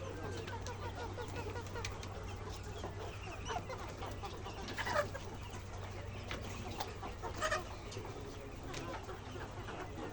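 Many chickens clucking and calling together, with a few louder calls standing out about three and a half, five and seven and a half seconds in. A steady low hum runs underneath.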